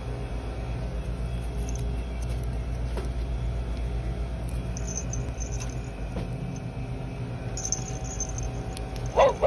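Steady low background hum with light rustles and clicks from the plush toy and its card tag being handled. Near the end, a loud sound with several falling tones starts as the animated plush puppy toy begins to play.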